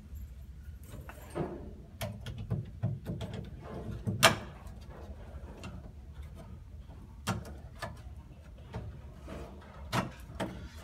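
Scattered small metal clicks and knocks of lock hardware being handled as a chrome lever handle is fitted onto the lock's cover plate and spindle, the sharpest click about four seconds in.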